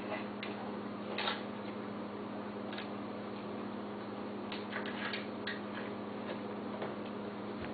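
A dog eating from a dish: irregular short clicks and smacks, a few bunched together about two thirds of the way through, over a steady low hum.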